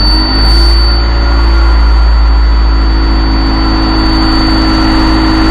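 Bus diesel engine idling steadily, heard from the driver's cab, with its newly fitted air compressor building up air pressure. A constant high-pitched tone sounds over the engine.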